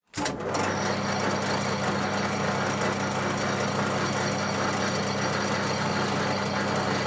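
Metal lathe running steadily with the stump grinder shaft turning in it: a constant motor hum under an even mechanical whirr, cutting in suddenly right at the start.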